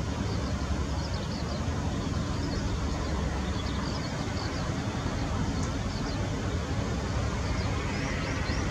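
Boeing CH-47J Chinook hovering low: its tandem rotors and twin turboshaft engines make a steady heavy rumble with a fast rotor beat. Faint high chirps sound over it.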